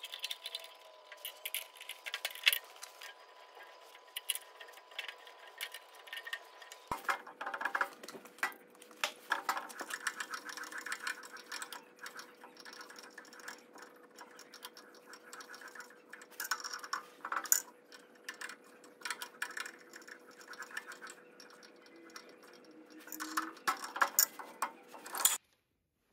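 A hand tap cutting threads in a metal plate, turned and backed off by hand, giving irregular metallic clicks and ticks. The sound cuts off suddenly near the end.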